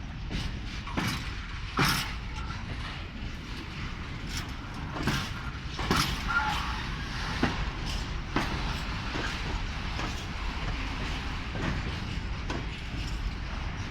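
Mixed freight train pushed through by an SM42 diesel shunting locomotive. Over a steady low rumble, the wagons give irregular sharp knocks and clanks about a second or so apart as their wheels pass over the rail joints.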